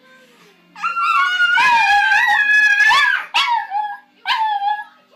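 A dog howling in high, wavering calls: one long call of about two seconds, then two shorter ones.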